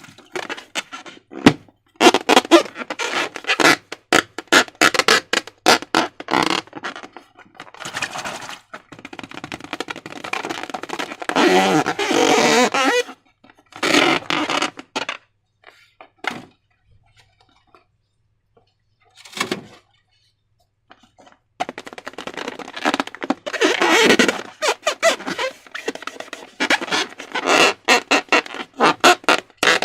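Slime being squeezed and worked by hand: wet squelching with rapid sticky clicks and crackles. The handling stops for a few seconds partway through, apart from one short squelch, then resumes.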